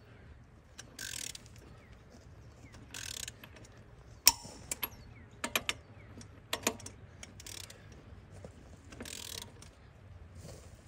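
Long-handled ratchet wrench turning an axle shaft flange nut on a bus rear hub: short runs of ratchet clicking, with a sharp metallic click about four seconds in and a few more knocks and clinks after it. The nut is not tightening, and the mechanic takes it to be stripped if not broken.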